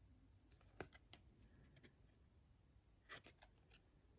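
Near silence, with a few faint clicks from trading cards being handled: one about a second in and a small cluster around three seconds.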